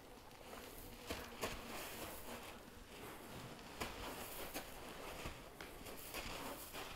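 Footsteps and rustling on the ground, with a few sharp clicks.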